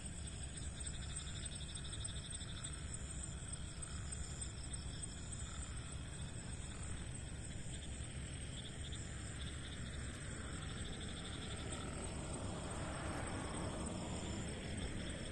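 Outdoor night ambience: insects chirring steadily and high-pitched over a low rumble, with a broader rush of noise swelling up near the end.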